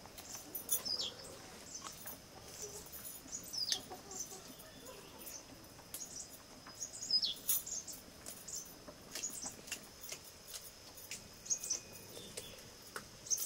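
A bird calling: short, falling whistled notes, three of them a few seconds apart, over scattered faint clicks.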